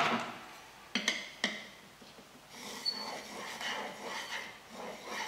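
A sharp click and two light knocks as the plane blade is placed on a 4000-grit waterstone. About two and a half seconds in, the steel starts rubbing back and forth on the wet stone in steady honing strokes, about two a second, polishing the slightly cambered edge.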